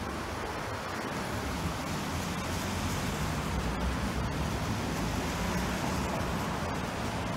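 Steady street traffic noise: a continuous wash of road noise with a low engine hum beneath it.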